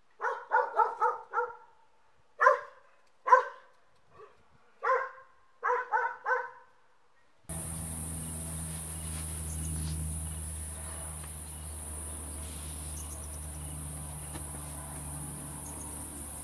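An animal gives about a dozen short, sharp calls in quick runs. After an abrupt cut about seven seconds in, a steady insect chorus of crickets takes over, with a low hum under it.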